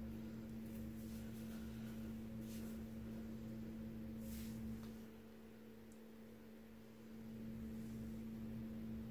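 A steady low hum with a deeper rumble beneath it that drops away for a couple of seconds past the middle, and a few faint, brief rustles.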